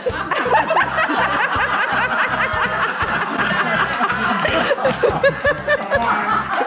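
A group of people laughing and chuckling together, many voices overlapping, over background music with a steady beat.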